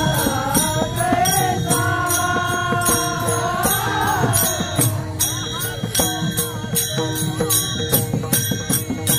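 Marathi devotional kirtan music: a voice singing long held, wavering notes in the first half, over a steady beat of small hand cymbals striking about twice a second.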